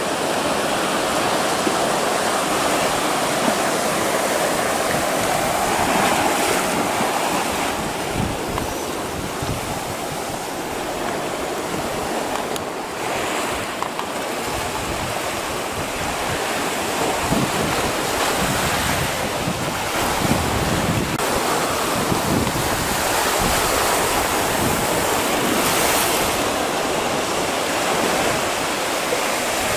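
Small sea waves breaking and washing over sand and rocks in a steady surf. Wind gusts buffet the microphone now and then, mostly in the middle stretch.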